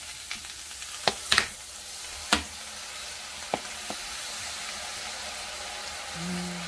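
Shishito peppers and dried anchovies sizzling steadily in hot oil in a frying pan. A few sharp clicks and knocks come in the first four seconds.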